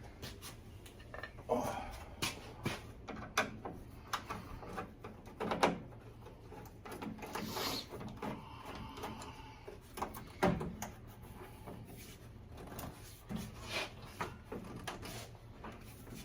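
Irregular clunks, taps and scraping of hands and tools working a radiator hose off in a car's engine bay, with a louder knock about five and a half seconds in and again about ten and a half seconds in.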